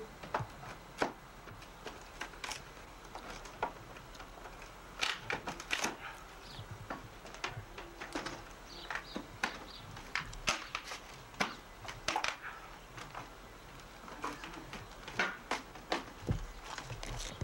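A steel pry bar working a weathered wooden board loose from a log wall, giving many irregular sharp clicks, knocks and cracks of metal on wood.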